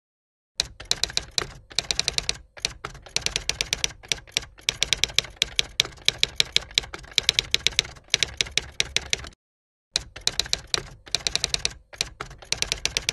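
Typewriter keys clacking in quick runs of strikes, several a second, with short pauses and a longer one about two-thirds of the way through; a typing sound effect that goes with on-screen text being typed out.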